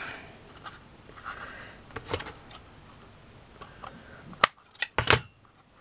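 Scissors snipping through card, several sharp cuts close together near the end as the edge of the card model is trimmed. Before that, quiet rustling and tapping of the card being handled.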